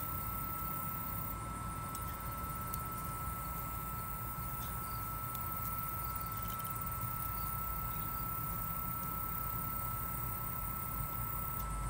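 BioLite CampStove's small internal fan running steadily with a thin, even whine, blowing air into the newly lit fire, over a steady low rumble.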